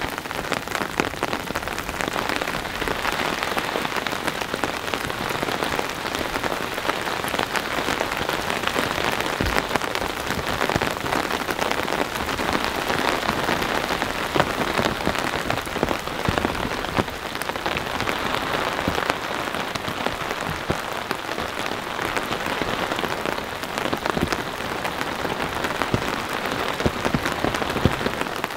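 Heavy rain falling steadily, a dense patter of individual drops hitting tent fabric.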